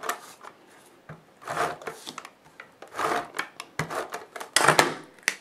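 Handheld scrapbook adhesive applicator (a tape-runner-style glue tool) rubbed across the back of a paper die cut, making a series of short scratchy strokes about a second apart.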